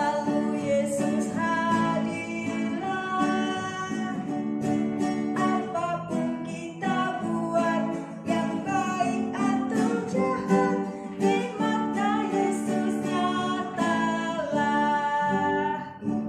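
A woman singing a children's hymn to strummed acoustic guitar.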